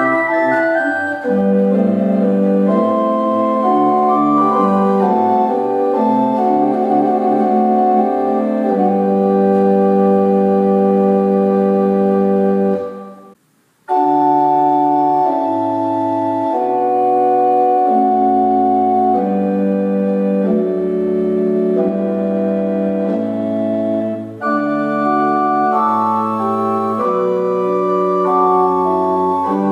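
Old English pipe organ, with parts possibly from about 1780, playing sustained chords over a moving bass line on its flue stops. About halfway through, the playing fades out and starts again a second later.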